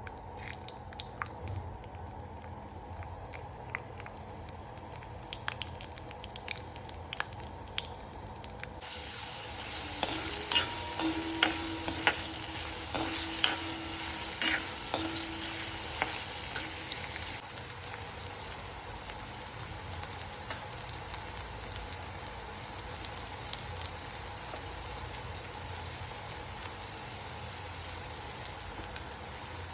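Food frying in hot oil in a pan. About nine seconds in the sizzle jumps much louder, as when ingredients go into the oil, with spoon clinks and scrapes of stirring for several seconds, then a steady sizzle.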